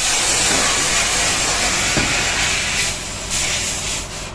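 Compressed air hissing loudly and steadily, then cutting into shorter bursts about three seconds in, with a light click near the middle.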